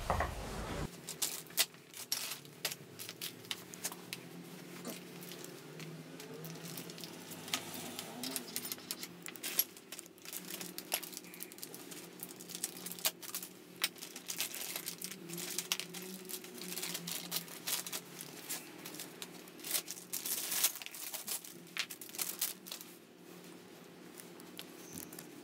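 Scattered light clicks and taps of metal scooter drivetrain parts (pulley and clutch pieces) being handled, with rustling as they are wiped with a rag, over a faint steady low hum.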